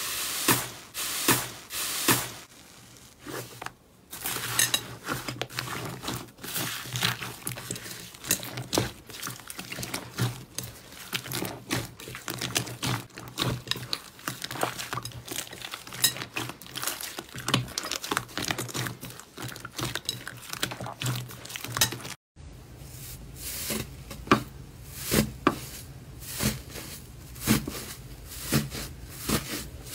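Hands squeezing, stretching and pulling slime in a bowl: a dense, irregular run of small pops, crackles and crinkly clicks, with a brief dropout about two-thirds of the way through.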